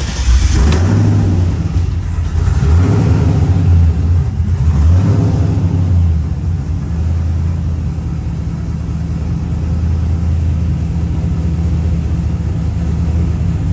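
LS1 V8 engine of a Camaro running just after starting, its speed rising and falling for the first six seconds or so, then settling into a steady idle.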